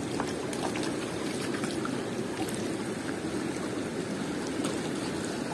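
Shallow stream water running and trickling steadily over stones.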